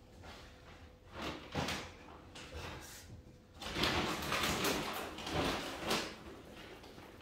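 Dog food being prepared: two light knocks, then about two seconds of louder clattering and scraping as containers are handled.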